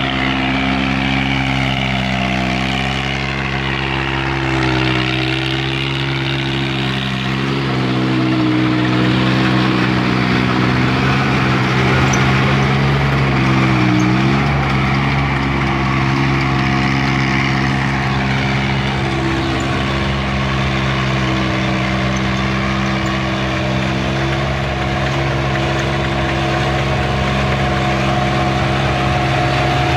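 Mitsubishi Shakti 18.5 hp tractor's diesel engine running steadily under load, driving a rotavator that is tilling the soil; its pitch dips briefly and recovers a few times in the first half.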